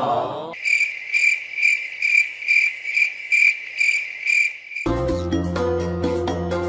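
Cricket chirping: a steady high trill swelling in regular pulses about two and a half times a second. It cuts off suddenly about two-thirds of the way through, and upbeat music with plucked, xylophone-like notes starts.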